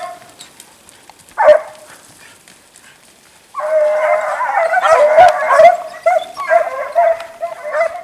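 Hare-hunting hounds baying. A single bay comes about a second and a half in; from about halfway through the baying runs almost without a break, the cry that hounds give on a hare's trail.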